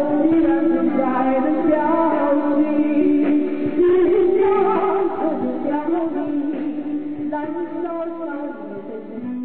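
Taiwanese opera music: a singing voice holding long, wavering notes over instrumental accompaniment, fading down over the last couple of seconds.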